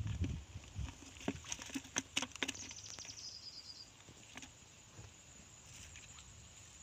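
Steady high-pitched insect drone in weedy marsh ground, with a brief rapid trill of ticks near the middle. A few sharp clicks and rustles sound in the first couple of seconds.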